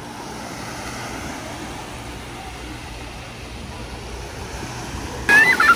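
Sea surf washing on the shore: a steady, even hiss that swells and eases slowly. A high-pitched voice cuts in near the end.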